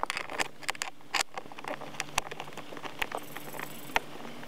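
Small 7 mm ratchet clicking in irregular short strokes as it backs out a screw holding a plastic kick plate.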